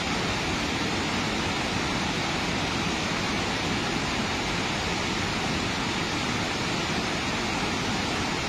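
Steady rush of water released through dam shutters raised two inches each, pouring down the concrete spillway; an even, unbroken noise with no change in level.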